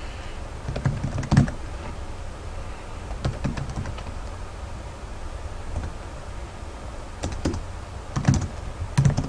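Computer keyboard typing: a few short runs of keystrokes with pauses between, over a steady low hum.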